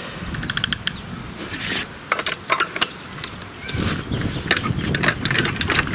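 Old petrol stationary engine being hand-cranked on full choke: a clatter of clicks and ratcheting from the crank and engine, with one louder cough near the end as it nearly fires. It does not catch; the owner suspects the magneto is not sparking properly.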